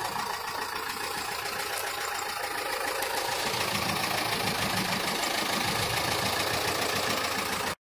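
David Brown 1212 tractor's diesel engine running steadily at low revs, getting a little louder partway through. It cuts off suddenly near the end.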